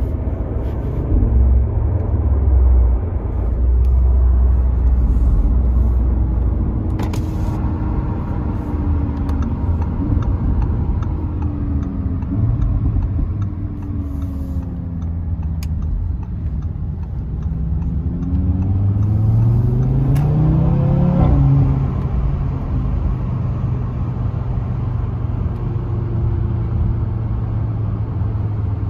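2019 Audi RS3's turbocharged five-cylinder engine heard from inside the cabin, running through its Audi Sport exhaust with no particulate filter or secondary cat. It makes a low rumble, easing off in the middle. About two-thirds of the way in the pitch climbs steeply under acceleration, then drops at an upshift. A few short sharp exhaust pops come through.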